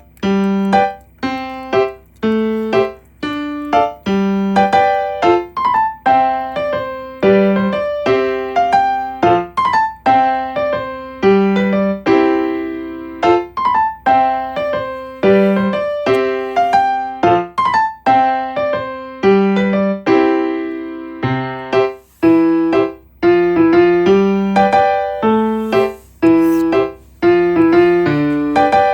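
Background piano music: a light melody of separate struck notes at an easy, steady pace.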